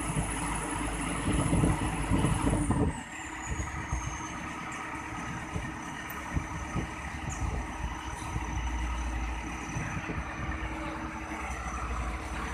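Heavy equipment engine running at raised revs, then dropping back to idle about three seconds in, with a high whine that falls in pitch as the revs come down and then holds steady.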